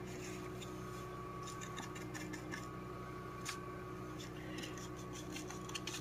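Faint, scattered crackling and rustling from hands working in a tray of peat seed-starting pellets, over a steady low electrical hum.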